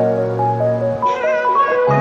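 Background music: a mellow instrumental track of held low notes under a stepping melody, with a new chord entering near the end.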